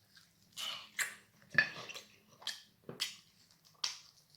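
Close-up eating sounds: a string of short, wet smacks and clicks from chewing, about seven separate sounds with quiet gaps between them.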